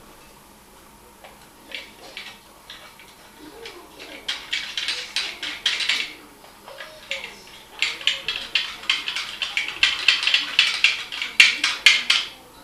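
Toilet seat hinge bracket and its bolts being handled and adjusted by hand: a run of small clicks and rattles, sparse and faint at first, growing quicker and denser from about eight seconds in.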